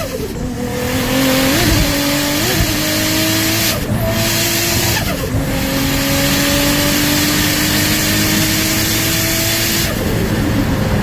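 A tuned 700 hp Toyota Supra at full throttle, its engine note climbing in long pulls through the gears. The pitch drops sharply at the shifts about five seconds in and near the end, over a loud turbo hiss, with turbo flutter when the throttle lifts between pulls.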